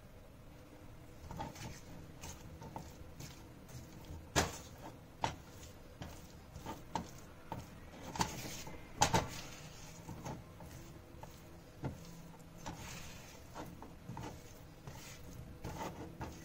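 A spoon knocking and scraping against a pan as boiled potato pieces are stirred into a wet spice paste, in irregular light taps and clicks with a couple of louder knocks.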